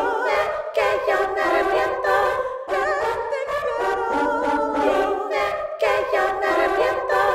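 A woman singing with vibrato into a microphone, over layered, choir-like vocals and little or no instrumental backing.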